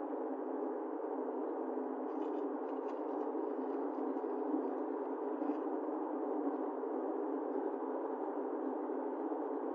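Steady road and engine noise inside a moving car, picked up by a dashcam microphone, with a few faint clicks a couple of seconds in.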